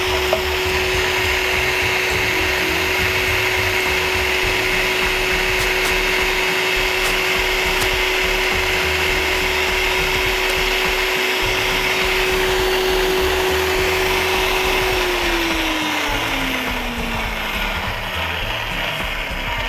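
Electric meat grinder running steadily as pâté is pushed through it a second time. The motor is switched off about fifteen seconds in, and its hum falls in pitch as it spins down.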